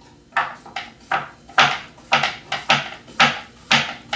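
Large kitchen knife chopping a cucumber on a wooden cutting board: a run of crisp knocks of the blade on the board, about two to three a second.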